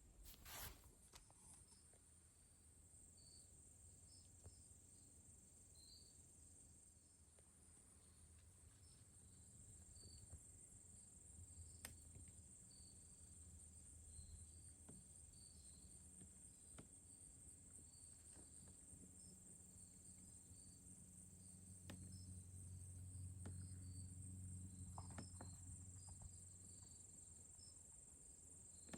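Faint, steady trilling of crickets or other insects with scattered short chirps, in an otherwise near-silent field. A faint low rumble swells about three quarters of the way through and then fades.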